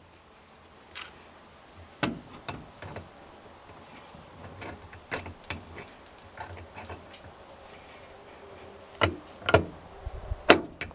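Scattered sharp clicks and knocks of metal tools and parts being handled while working on a washing machine's tub drain hose and its clamp, the loudest a pair near the end and one just before it ends.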